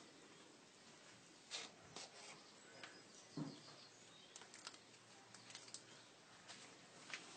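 Near silence, broken by a few faint scattered clicks and soft rustles of hands and knife working a hanging rabbit carcass during skinning, the loudest a dull knock about three and a half seconds in.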